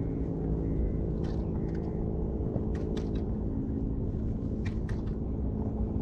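A motor running steadily with a low, even hum and rumble, and a few light clicks over it.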